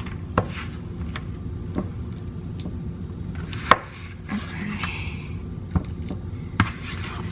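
Potatoes being mashed in a glass dish: a kitchen utensil knocking irregularly against the glass, the loudest knock about halfway through, with a short scraping sound just after.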